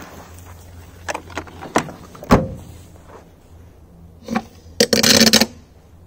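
Fuse of a small ball-shaped firecracker fizzing as it burns, then a few knocks and a sharp thump about two seconds in. A half-second burst of rough noise comes near the end.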